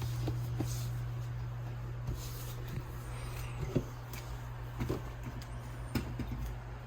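Small submersible water pump driving a DIY tabletop waterfall, humming steadily, with a few faint clicks and knocks.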